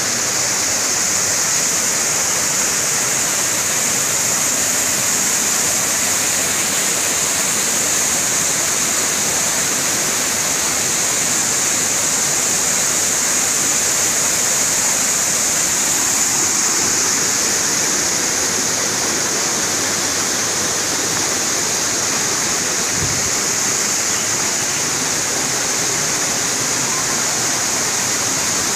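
Steady, unbroken rush of a waterfall and rocky hill stream, water cascading and splashing over stones.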